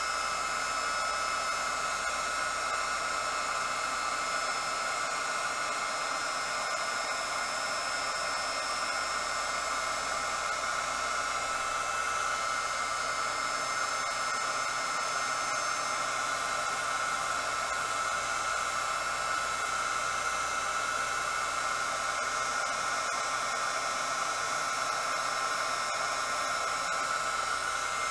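Handheld embossing heat gun running steadily, its fan blowing with a steady high whine as it melts embossing powder.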